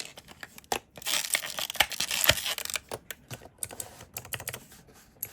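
Packaging being torn and crinkled open, then scattered sharp clicks from Clic-kees keycap fidget toys being pressed.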